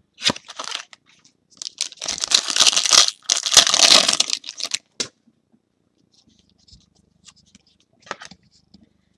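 Trading-card pack wrapper and cards being handled: rustling and tearing in a short burst, then a longer, louder stretch, with a sharp click about five seconds in.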